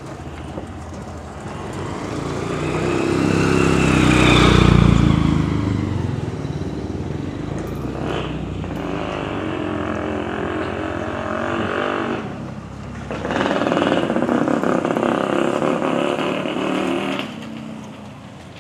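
Motorcycle engine running with road noise. It swells to its loudest about four to five seconds in and carries on more steadily afterwards, with a brief lull near the two-thirds mark.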